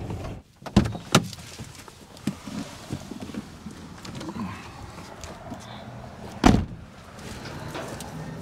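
A van door is opened, with two sharp clunks of the latch and handle about a second in, then a single loud heavy thump later on as a door is shut.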